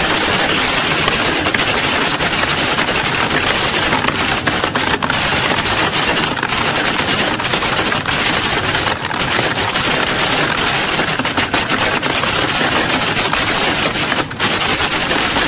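Many computer keyboards being typed on at once, a dense, unbroken clatter of keystrokes.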